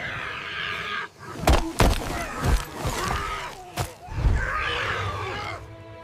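Creature-fight sound effects: cries, grunts and groans from a giant flightless bird and an early human, broken by several heavy thuds.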